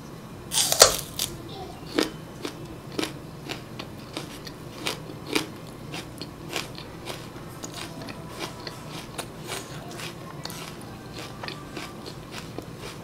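A crisp crunching bite into a stalk of raw Korean green onion (daepa) just under a second in, followed by chewing with a run of sharp crunches that grow fainter and sparser toward the end.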